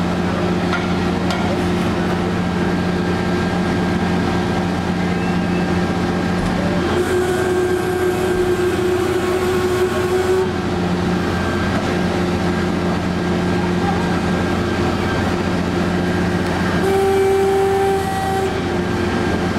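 Fire engines' engines running steadily at a fire scene, a loud constant drone with a low hum under it. A higher tone joins in for a few seconds about a third of the way through and again briefly near the end.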